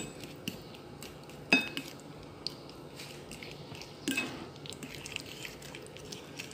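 Metal fork mashing ripe bananas in a bowl: soft squishing with scattered sharp clinks of the fork against the bowl, the loudest about a second and a half in and again about four seconds in.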